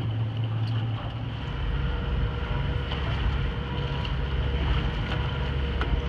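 Workboat engine running steadily under load while towing a large log through the water, with wind buffeting the microphone.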